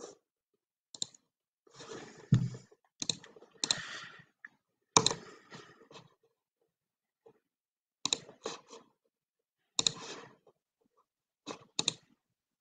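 Scattered clicks from a computer mouse and keyboard at irregular intervals, some in quick pairs, picked up by a video-call microphone.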